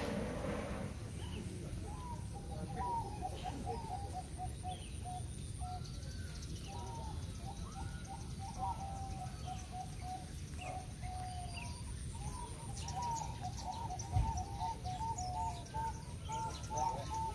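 Several caged zebra doves (perkutut) cooing together, their short repeated notes overlapping at slightly different pitches, starting about two seconds in. A steady low rumble runs underneath, and a single dull thump comes about fourteen seconds in.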